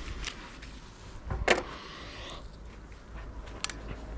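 A few short knocks and clicks of hand work with tools and metal parts, one sharper knock about a second and a half in.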